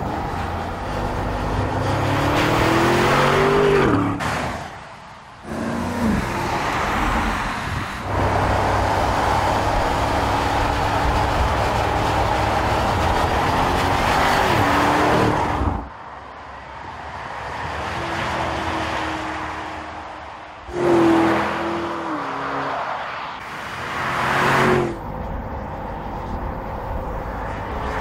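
Audi SQ8's V8 engine and exhaust accelerating hard several times. Each time the revs climb and then drop sharply at a gear change, with steadier, quieter running in between.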